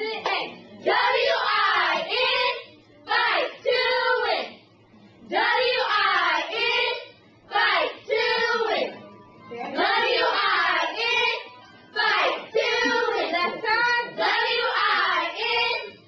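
Group of young cheerleaders chanting a cheer in unison, in short rhythmic phrases with brief pauses between them.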